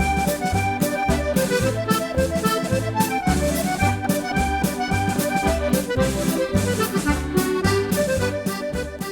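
Accordion playing a brisk Scottish reel: a quick running melody over a steady, pulsing left-hand bass-and-chord beat. It begins fading out near the end.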